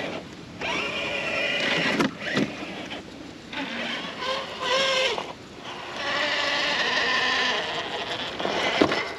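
Traxxas TRX-4 RC crawler's electric motor and geartrain whining in three bursts of throttle, with short pauses between them.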